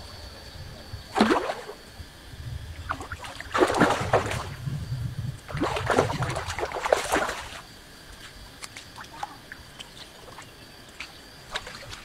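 A hooked fish splashing and thrashing at the water's surface as it is played on a fishing pole: one sharp splash about a second in, then two longer bouts of splashing from about three and a half to seven and a half seconds.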